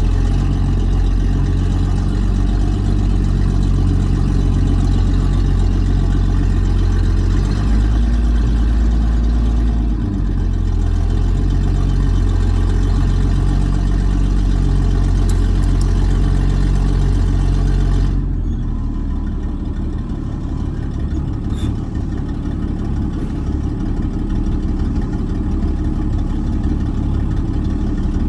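Old Chevy pickup truck's engine running as the truck is driven a short way and stopped, heard from the truck bed: a steady engine hum whose note shifts briefly partway through. About two-thirds of the way in, the sound changes abruptly to a rougher, uneven low rumble.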